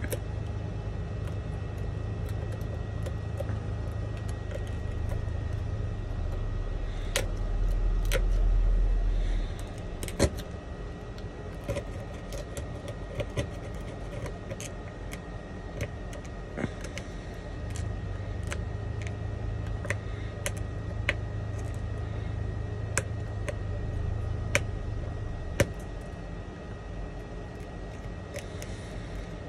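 Thin metal blade chipping and scraping laser-loosened shards of shattered iPhone 11 back glass off the frame: scattered sharp clicks and ticks of cracking glass. Under them runs a steady low hum that swells briefly about a third of the way in.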